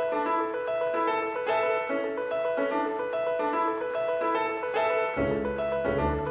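Background music: a piano melody of repeated short phrases, with a lower bass part coming in about five seconds in.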